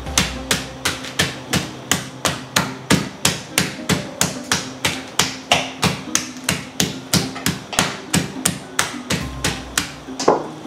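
Meat tenderizer hammer pounding raw chicken breast flat, in rapid, even strikes at about three a second, with one harder strike near the end.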